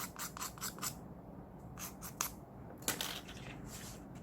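Short, scratchy strokes of a nail tool working on a fingernail: a quick run of about eight in the first second, then a few single strokes spaced out after.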